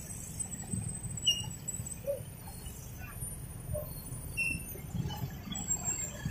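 Low, steady engine and road noise of slow, stop-and-go motorcycle traffic on a wet road, with a couple of brief high squeaks about a second in and again around four seconds in.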